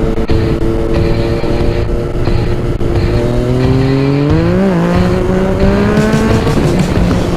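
Yamaha MT-09 inline three-cylinder engine through a baffle-less Akrapovič exhaust, running at steady revs while riding, then rising in pitch about halfway through with a brief blip and holding higher revs. Wind rush sits underneath.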